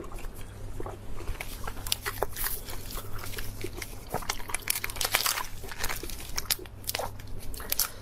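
Close-miked eating: a person biting and chewing food, with many irregular crisp crunches and wet clicks.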